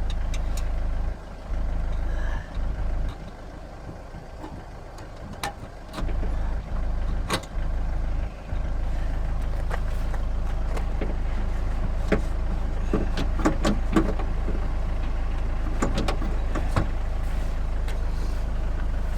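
A steady low rumble that drops away a few times, with scattered clicks and knocks of hands and tools working on parts inside a car door.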